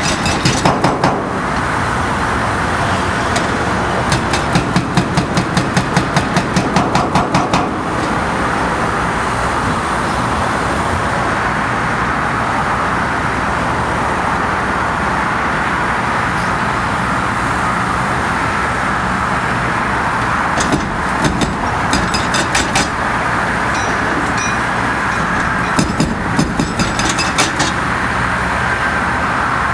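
Hydraulic breaker hammer on a Link-Belt 210XL excavator pounding an overpass bridge, in four runs of rapid, evenly spaced blows, several a second, each lasting a few seconds. Between runs there is a steady roar of traffic and machinery.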